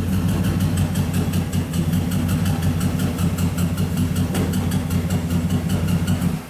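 2007 Cadillac Escalade's 6.2-litre V8 idling steadily while still misfiring on cylinder 8, a fault that stayed with cylinder 8 after its coil was swapped, so the coil is not the cause. The sound cuts off abruptly near the end.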